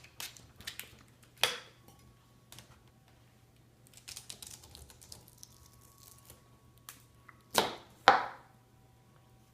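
Fillet knife cutting and scraping wax honeycomb off a frame: a series of crisp, crackling strokes, the two loudest close together near the end.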